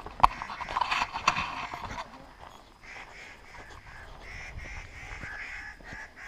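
Camp robbers (Canada jays) calling, a run of short harsh notes repeated about twice a second through the second half. Before that, in the first two seconds, there is a sharp knock and some rustling.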